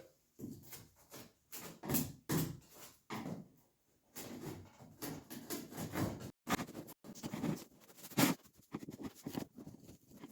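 Loose fiberglass cloth being picked and peeled off the old gel coat of a Sunfish hull by hand: irregular crackling and scraping in short scratchy bursts, with a brief pause about four seconds in.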